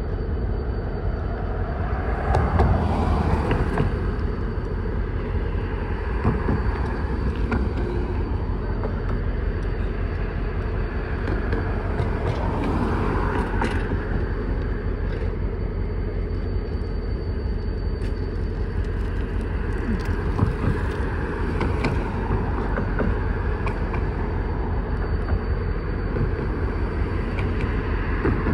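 A freight train moving through a rail yard: a steady low rumble that swells twice, with a few sharp clicks from the cars and rails.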